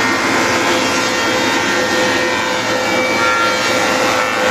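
Weinig Unimat 23 four-sided planer running with its cutter heads spinning, planing a wet board: a loud, steady machine noise with a constant tone in it.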